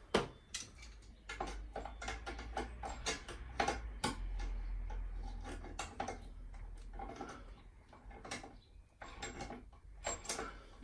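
Irregular small clicks and light knocks of plastic pipe clips and metal fittings being handled and pressed onto gas pipework at the meter regulator bracket, over a low rumble.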